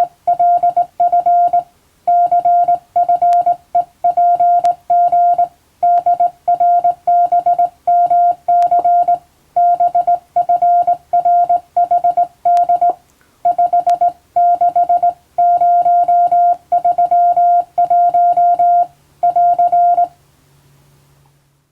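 Morse code as a single steady tone of about 700 Hz, keyed on and off in short dots and longer dashes grouped into characters. It stops about 20 seconds in, after which only a faint low hum remains.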